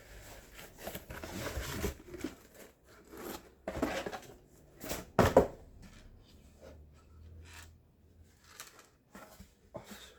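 Packaging being handled and unwrapped: irregular rustling, rubbing and tearing, with the loudest bursts about four and five seconds in.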